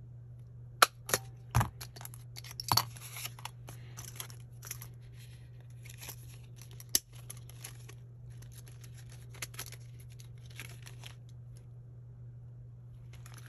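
Sharp clicks and snaps from a McGill 3/16-inch handheld hole punch and the metal rings of a mini three-ring binder, loudest in the first three seconds with one more snap about seven seconds in. Between them, pages and the clear plastic cover rustle and crinkle as they are handled.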